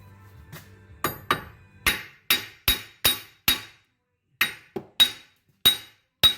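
Hammer blows on steel, about a dozen sharp strikes with a bright metallic ring, two to three a second with a short pause midway: hammering out the rust-seized wheel hub of a 2006 Nissan Altima.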